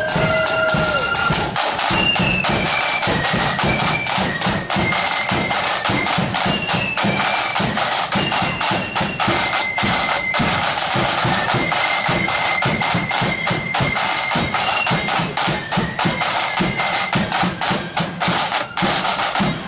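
Marching flute band playing a tune: a high flute melody over rapid, dense drumming.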